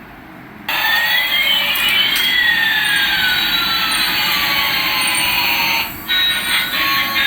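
Jet-engine sound effect, as from a toy airliner: a steady rushing hiss with two whistling tones, one rising in pitch and one falling, that starts about half a second in and breaks off briefly near six seconds.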